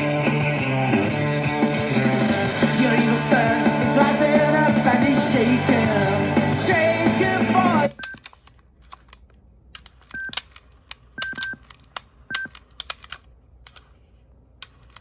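A rock song with singing plays from a cassette on a Sony WM-EX641 Walkman through a small speaker, then stops abruptly about eight seconds in. After that come small clicks of the player being handled and several short high beeps.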